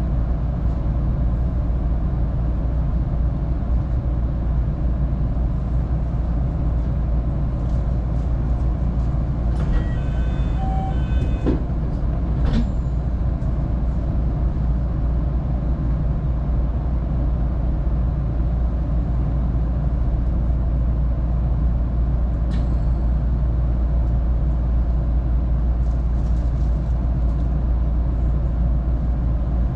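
JR Kabe Line local electric train standing at a station with its doors open, giving a steady low rumble. A short electronic chime sounds about ten seconds in, and sharp clicks come near twelve and twenty-two seconds.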